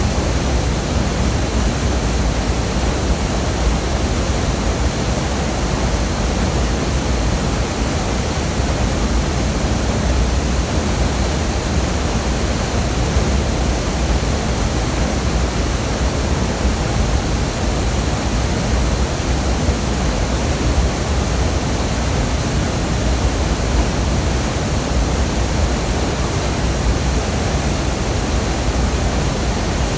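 Waterfall's falling water making a loud, steady rush with a strong low rumble, unchanging throughout.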